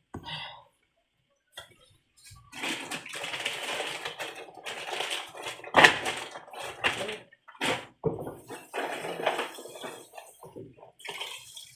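Pepper and oil frying in a pot, an uneven sizzle with crackles and pops, starting about two and a half seconds in.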